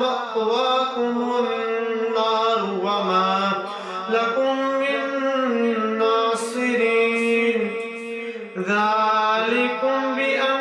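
Solo male voice reciting the Quran in melodic tilawat style, chanting long held notes with ornamented bends in pitch, broken by two short breaths.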